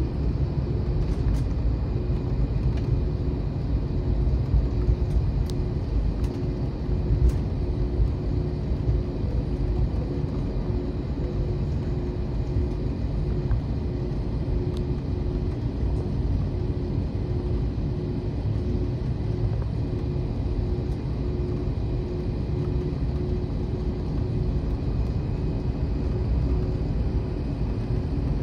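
Airbus A321 cabin noise while taxiing after landing: a steady low rumble from the engines at taxi power and the rolling gear, with a steady hum over it and a few faint clicks early on.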